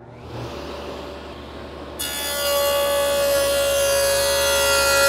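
Table saw with a stacked dado cutter cutting a rabbet along a poplar board: a steady high whine with cutting noise, much louder from about two seconds in.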